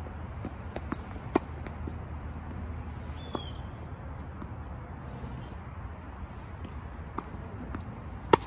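Tennis rally on an outdoor hard court: sharp pops of racquet strings hitting the ball and the ball bouncing, spaced a few seconds apart, with the loudest a close forehand near the end. A short shoe squeak on the court about three seconds in.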